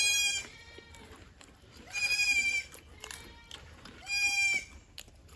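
Three drawn-out, high-pitched animal calls, each about half a second long, spaced about two seconds apart.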